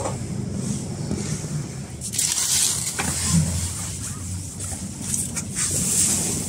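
Indistinct shop background noise: a steady low rumble with swells of rustling hiss from the microphone being handled or rubbed while walking, and a few faint clicks.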